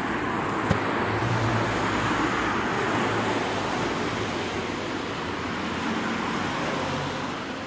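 Road traffic on a wet street: cars passing with tyre hiss on the wet asphalt over a low engine hum, easing slightly near the end. A brief click comes just under a second in.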